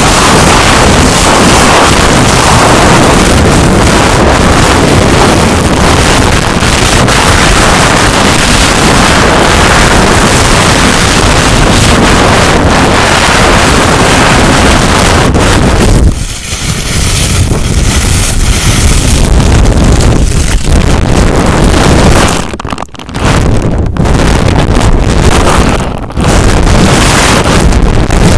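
Loud, dense friction noise made right against the microphone as an ASMR trigger, continuous apart from brief breaks about two-thirds of the way through and again near the end.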